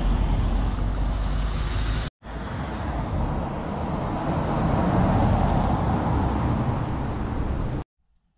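Loud, steady rushing noise that cuts out abruptly about two seconds in, starts again at once, and stops sharply near the end.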